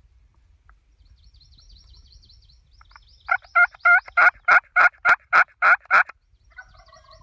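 Quaker Boy Easy Yelper push-pin box call run through a series of about ten turkey yelps, roughly three a second, starting about three seconds in.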